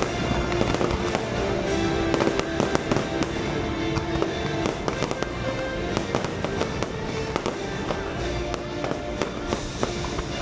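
Fireworks going off in a dense run of sharp bangs and crackles, over show music with held notes.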